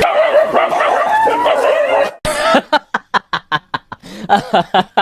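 A dog whining in wavering, rising and falling cries, then, after an abrupt change about two seconds in, yapping in a quick run of short, sharp barks, several a second.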